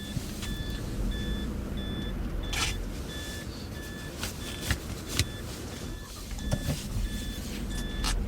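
A rapid electronic warning beep repeating evenly about three times a second over the low rumble of a running vehicle, with a few sharp clicks.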